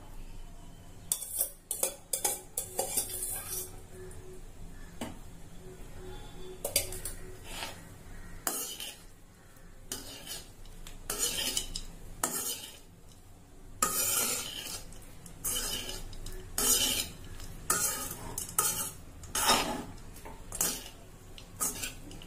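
A utensil stirring and scraping cooked rice around a pan, clinking against the pan in many irregular strokes, as the rice is mixed into the lemon-juice tempering to make lemon rice.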